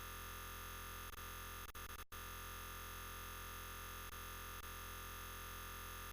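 Faint steady hiss and low hum with no distinct sound event, dropping out for an instant about two seconds in.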